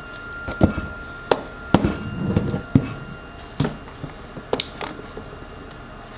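A series of sharp, irregular knocks and clicks on a hard object, about nine in six seconds, over a faint steady high-pitched tone.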